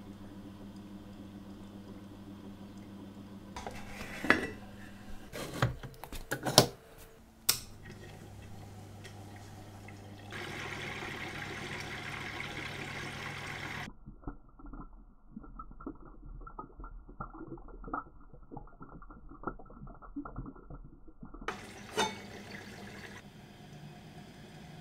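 Elma watch-cleaning machine at work: a steady motor hum while the basket of watch parts turns in the glass rinse jars. Sharp clinks of metal and glass come about four to seven seconds in and again near the end, and there is a steady swishing of liquid midway, followed by a muffled stretch of light rattling.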